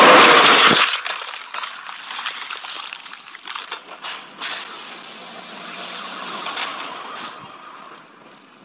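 A loud burst of noise, a crash-like sound effect, cuts off about a second in. Fainter crackling and hissing noise with scattered clicks follows.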